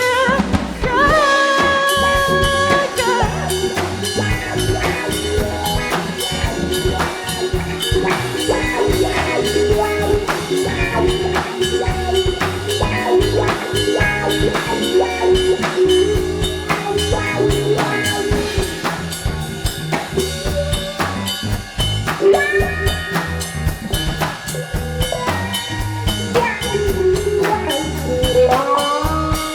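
A live funk-rock band playing an instrumental passage: guitar, bass and drum kit, with the drums keeping a steady beat and pitched lines that bend in pitch shortly after the start and again near the end.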